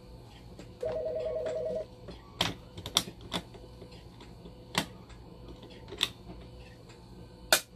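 A trilling electronic beep about a second long, two tones pulsing rapidly together, followed by a series of sharp plastic clicks and knocks as the blood pump module's clear door is opened and its roller rotor handled.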